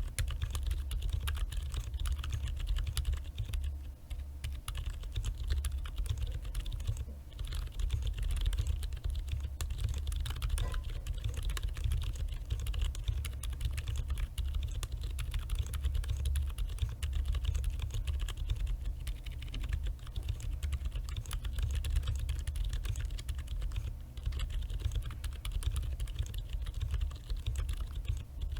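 Continuous typing on a mechanical keyboard with Boba U4 62g silent tactile switches, lubed with Krytox 205g0, in an acrylic case and plate with PBT keycaps: a fast, steady run of quiet keystrokes.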